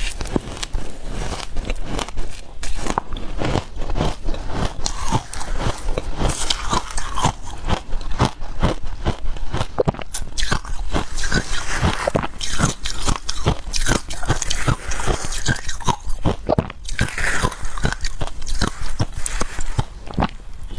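Crushed passion fruit ice being bitten and chewed in the mouth: a dense, rapid run of crisp crunches that goes on without a break.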